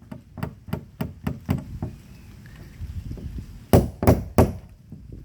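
Hammer striking a small round punch to drive a washer down over a copper boat nail through cedar planking, ready for clinching. A run of light taps, then three hard blows near the end.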